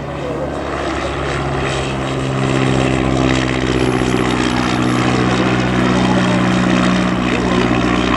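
Royal Aircraft Factory SE5a's 200 hp Wolseley Viper V8 engine and propeller running, getting louder about two seconds in and then holding steady.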